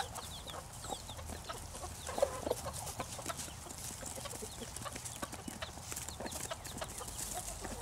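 A small flock of chickens clucking quietly with short scattered calls, and many small ticks as they peck at the feed on the ground.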